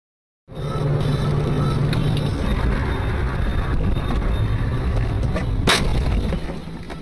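Dashcam audio from inside a moving car: loud, rough road and engine rumble that starts suddenly, with one sharp knock about five and a half seconds in, after which the rumble eases.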